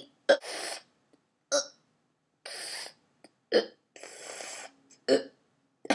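Hiccups voiced by a ventriloquist for a sock puppet: a short, sharp 'hic' about every second and a half, with breathy drawn-in breaths between.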